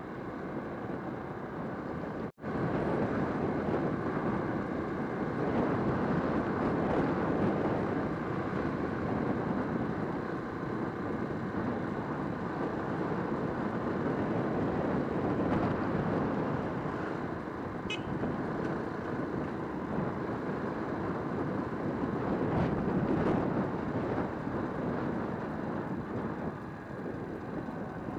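Motorcycle ride heard from the rider's camera: a steady rush of wind and road noise over the bike's engine. The sound cuts out for an instant about two seconds in.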